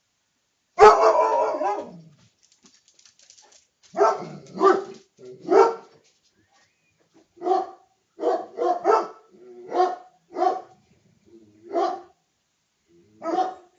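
A dog barking: a longer, loud outburst about a second in, then about a dozen short single barks, some in quick pairs, spaced through the rest.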